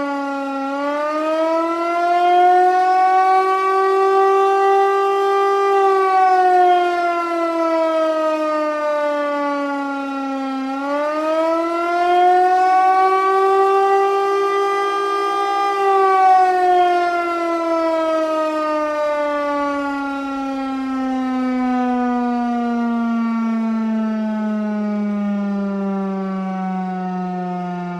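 Federal Signal Eclipse 8 outdoor warning siren sounding its attack signal, one loud wailing tone. It rises, falls, rises again, then slides down slowly through the last twelve seconds. The pitch sags as the cycle goes on, which the uploader puts down to a failing battery.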